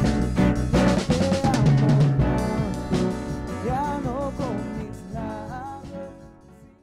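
Music with a drum kit and a melody over it, fading out over the last few seconds.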